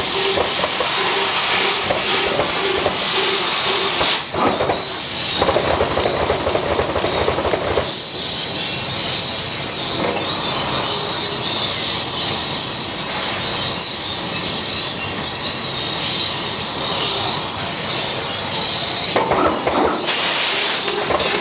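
TRUMPF CNC laser cutter cutting steel: a loud, steady hiss from the cutting head's gas jet, with a pulsing hum in places. The sound shifts about four seconds in, again around eight seconds, and shortly before the end.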